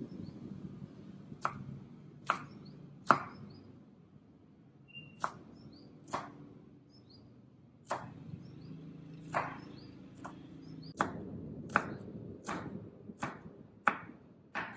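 Knife chopping bird's eye chilies on a bamboo cutting board: a series of sharp knocks of the blade against the board. The knocks are spaced unevenly at first and come faster and more regularly in the second half.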